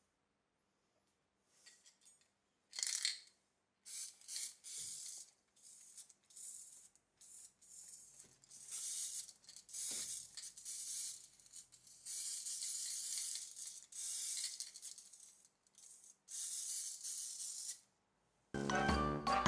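Aerosol can of black spray paint hissing in repeated short bursts, the can nearly used up. Jingling music starts near the end.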